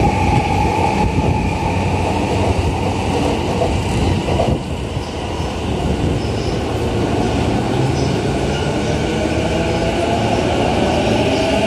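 JR East E233-1000 series electric train pulling out of the station and gathering speed past the platform, with a steady low rumble. A rising whine, typical of its traction motors accelerating, comes in near the end.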